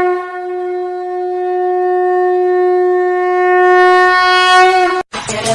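A conch shell (shankh) blown in one long, steady note of about five seconds, which cuts off abruptly.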